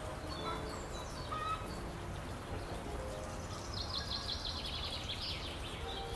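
Small birds chirping over a steady outdoor background hiss, with a fast run of repeated high chirps about four seconds in.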